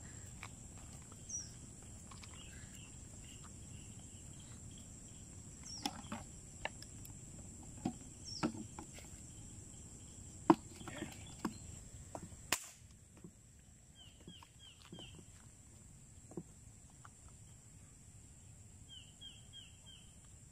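Quiet outdoor ambience: a steady high-pitched insect drone, with short bird chirps, including two quick runs of four chirps in the second half. A few sharp clicks and knocks are heard, the loudest about ten and a half seconds in.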